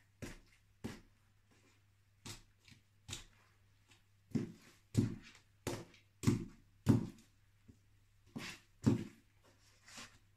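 Black block-heeled suede boots stepping and stamping on kiwi fruit on a laminate floor: about a dozen separate thuds of heels and soles on the floor and on squashed fruit, loudest in the middle.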